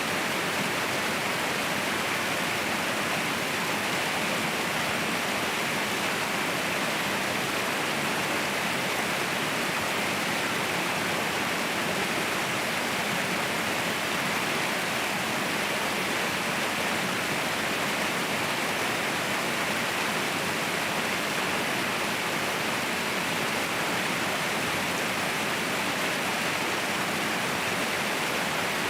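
Waterfall roaring: a steady, even rush of falling water, brightest in the hiss and spray range, with little deep rumble and no change in level.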